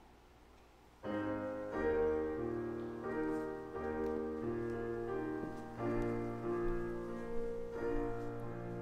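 A keyboard instrument starts about a second in, playing slow held chords as closing music for a church service.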